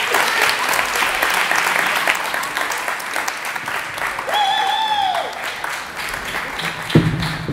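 Theatre audience applauding, the clapping thinning out after about four seconds. Midway, a single voice calls out briefly, and near the end there is one thump.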